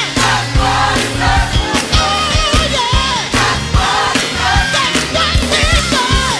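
Black gospel song recording: a solo singer with a wide vibrato over a band with a steady drum beat and bass.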